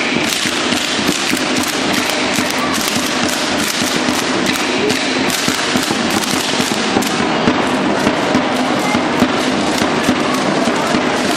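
Matachines dance: a hand-held drum beating steadily under the dense, continuous clatter of the dancers' rattles and stamping feet.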